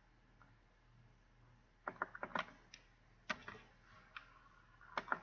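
Faint clicks of a computer keyboard and mouse as a value is entered in a form field: a quick run of clicks about two seconds in, one more a second later, and another near the end.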